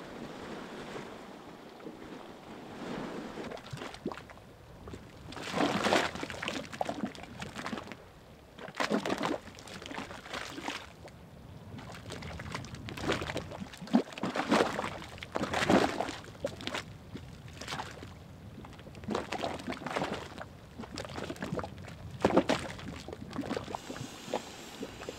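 Boiling mud pot: thick grey geothermal mud bubbling and plopping in irregular clusters of gurgles, a few seconds apart.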